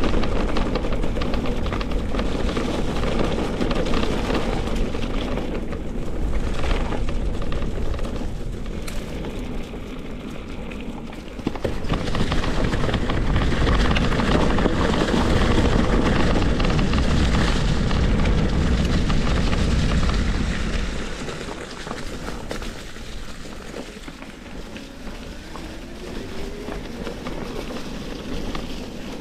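Wind buffeting the microphone over the rumble of a mountain bike riding a rough trail. It is loud and steady, then drops to a quieter level about two-thirds of the way through.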